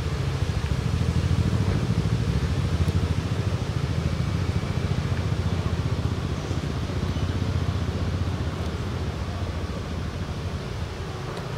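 A steady low rumble with no speech.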